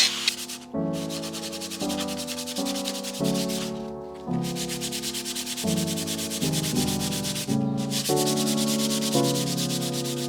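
Background music: sustained synth chords changing every second or so over a steady rasping hiss, with short breaks about a second, four seconds and nearly eight seconds in.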